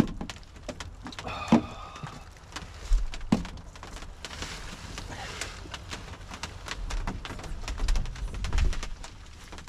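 Small knocks and clatter of coffee gear (a coffee can, a thermos and a canister) being handled and set down on a plastic cooler lid, with a brief ringing tone about one and a half seconds in and clothing rustling.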